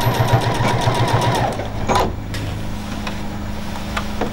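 Juki HZL-NX7 sewing machine stitching through a stack of curtain fabric and heading tape about 5 mm thick without strain, in an even beat of about seven stitches a second. The stitching stops about a second and a half in, followed by a sharp click.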